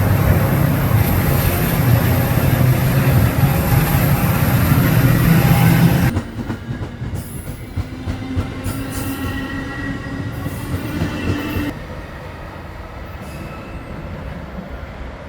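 Metra commuter train passing close: a loud, low engine drone for about six seconds, then it drops off suddenly to the quieter rolling of the coaches with faint wheel squeal tones, fading further near the end.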